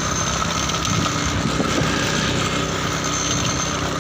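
Motorcycle engine running steadily while riding along, with a constant hum of road noise.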